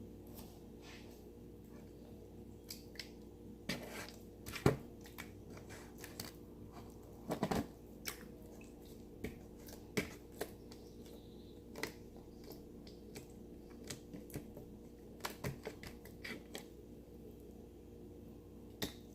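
Slime being handled and squeezed, giving scattered faint clicks and small squelching pops a few times a second, with a few sharper clicks, over a steady low hum.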